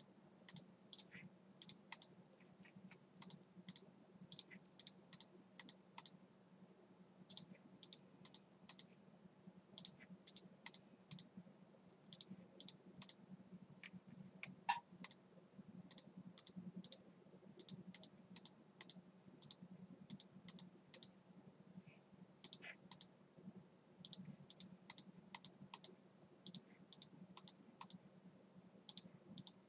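Computer mouse buttons clicking in quick clusters of two to four, again and again, as line endpoints are picked and the tool is repeated with right-clicks, over a faint steady low hum.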